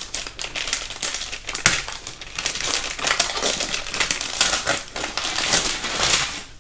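Clear plastic film being peeled and pulled off a cardboard laptop box, a continuous crinkling and crackling with one sharper crackle about a second and a half in.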